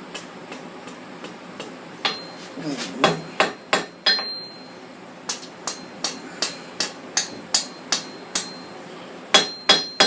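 Blacksmith's hammer striking hot steel on an anvil while curling a tight scroll into the tip of a small bar. Light taps come first, then a run of sharper blows at about three a second, some of them ringing.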